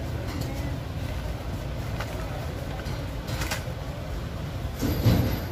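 Grocery-store background: a steady low rumble with a few light clatters, and a louder bump about five seconds in.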